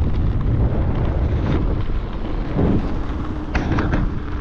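Wind buffeting the microphone of a rider on a moving e-bike: a loud, steady low rumble, with a few sharp clicks about three and a half seconds in.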